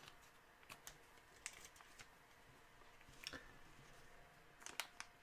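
Near silence with a handful of faint, short clicks and taps spread through it.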